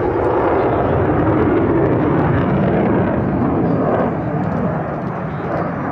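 Loud jet engine noise from an F-16 Fighting Falcon in flight, a steady rushing roar that eases slightly about four seconds in.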